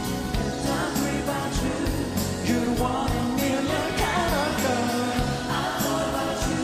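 Up-tempo pop music played live, with a steady drum beat and a melodic line over it.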